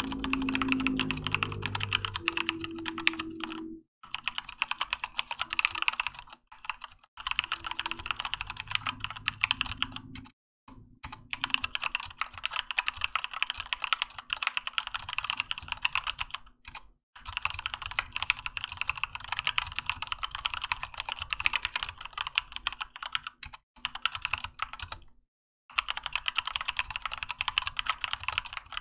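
Keychron K2 mechanical keyboard with Gateron Red linear switches and OEM-profile PBT keycaps being typed on quickly, a steady stream of key clacks broken by a few short pauses.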